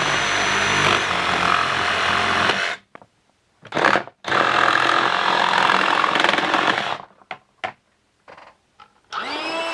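Cordless DeWalt XR jigsaw cutting notches into a plastic toilet seat: two runs of about three seconds each, with a short burst between them, and a few light clicks after. Near the end a motor starts up and holds a steady whine.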